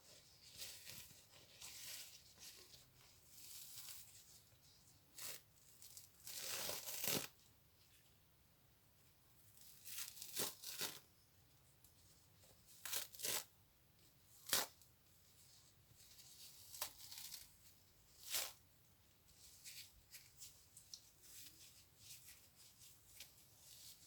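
A series of short tearing sounds at irregular intervals, with one longer rip about seven seconds in and the sharpest about halfway through.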